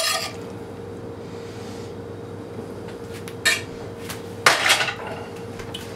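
A metal serving utensil clinking and scraping against a stainless steel pan as pasta is spooned out: a sharp clink at the start, another about three and a half seconds in, and a longer scrape about four and a half seconds in.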